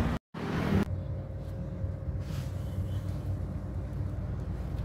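Steady low outdoor rumble with a faint steady hum. A short louder hiss comes just after a brief dropout near the start.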